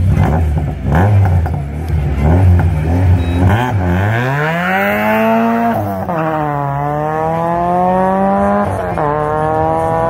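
First-generation Renault Clio rally car revving on the start line with a few sharp cracks, then launching and accelerating hard, its engine note climbing steadily and dropping at two upshifts, about six and nine seconds in.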